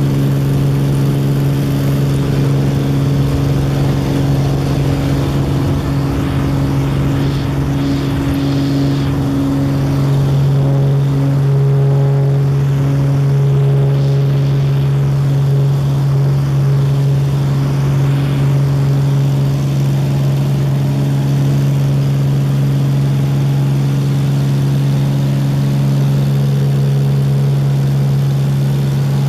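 Single-engine bush plane's propeller engine at takeoff power, heard from inside the cabin through the takeoff roll and climb-out: a loud, steady drone with a strong low propeller hum.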